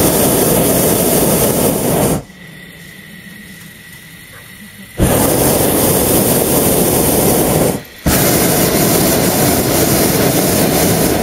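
Hot air balloon's propane burner firing in blasts: about two seconds at the start, then, after roughly three seconds off, again for about three seconds, a brief break, and once more until the end.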